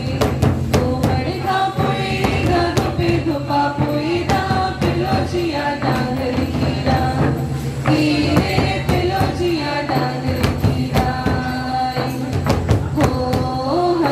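Adivasi folk dance song: singing over a steady beat of hand drums played in quick strokes.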